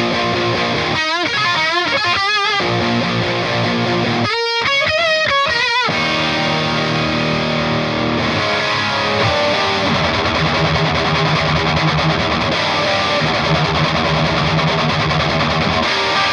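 Heavy metal song played on high-gain distorted electric guitar through a Diezel VH4 tube amp, with drums. The first few seconds hold wavering, bent lead notes with vibrato, giving way to a dense, chugging distorted riff.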